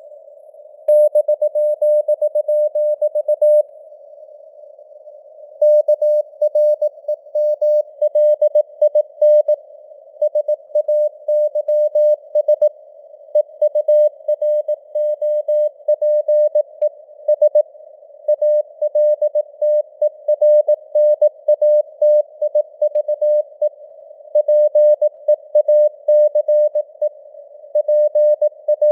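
Morse code (CW) sent at 18 words per minute: a single mid-pitched tone keyed on and off in dots and dashes over a narrow band of hiss, like a receiver tuned to a signal. The keying starts about a second in and breaks off for about two seconds near the four-second mark.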